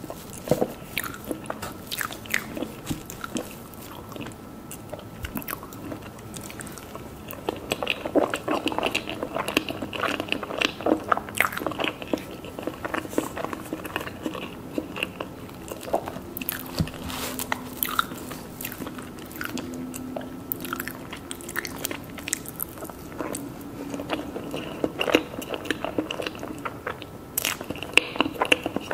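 Close-up eating sounds of mousse cakes being bitten and chewed: a steady run of crunches and small mouth clicks, busier in two stretches.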